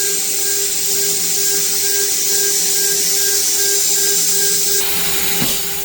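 PrintNC Pro CNC router spindle running steadily with a constant whine while machining a 6061 aluminium part. Near the end the cutting hiss stops and the spindle winds down in a falling whine as the program finishes.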